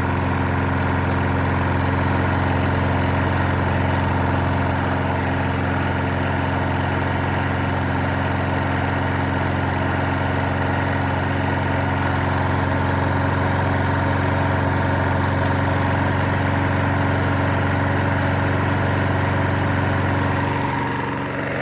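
Mountfield Empress 16 lawnmower's Briggs & Stratton engine running steadily, its low hum dipping slightly near the end. It is burning off oil that the owner thinks got in when the mower was tipped up the wrong way.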